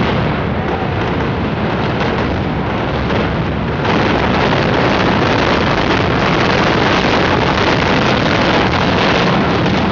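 Loud, continuous rumbling and crashing of a large building collapsing during demolition, a dense noise that grows louder about four seconds in.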